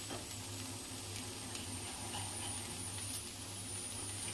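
Corn kernels and vegetables gently sizzling in a pan over a medium flame: a soft, even frying hiss with sparse small crackles over a steady low hum.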